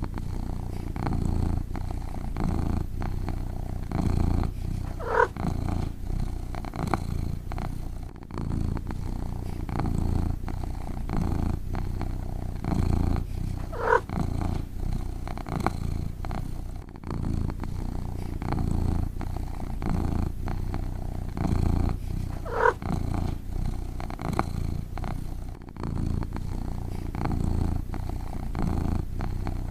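Domestic cat purring in a low rumble that swells and eases with each breath, roughly once every second or two. About every nine seconds there is a brief, higher squeak-like sound.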